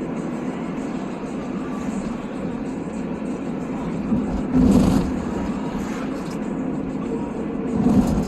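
Steady road and engine noise of a car driving, with two louder low rumbles, one about halfway through and one near the end.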